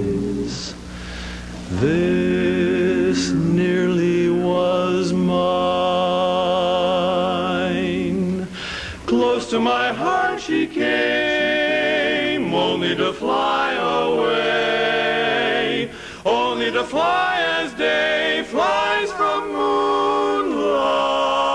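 Male barbershop quartet singing a cappella in four-part close harmony, with vibrato on the held chords. Long sustained chords give way to a quicker passage of short notes about nine seconds in.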